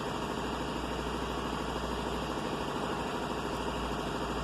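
2016 Chevrolet Suburban's V8 engine idling steadily.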